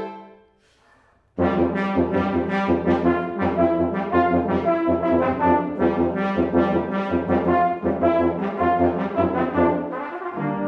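Brass quintet of two trumpets, horn, trombone and tuba playing: a chord rings off into a short silence, then the full ensemble comes in suddenly about a second and a half in with a fast run of short repeated notes over a pulsing tuba bass.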